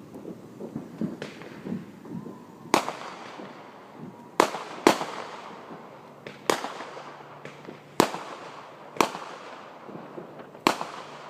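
Fireworks going off at a distance: seven loud bangs at irregular intervals, each trailing off in a fading echo.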